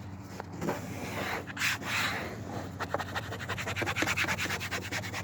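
Plastic credit card scraping and rubbing over a vinyl Mustang door panel insert, pressing the freshly glued vinyl down into the panel's creases. It turns into fast, even back-and-forth strokes about three seconds in.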